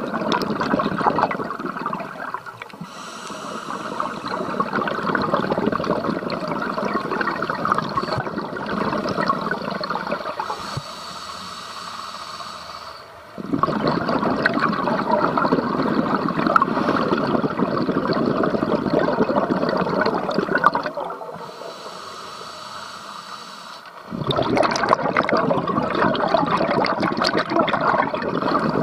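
Scuba regulator heard underwater: long rushing bursts of exhaled bubbles, each several seconds long, with quieter breaks about a third and about three quarters of the way through when the diver inhales through the regulator with a faint hiss.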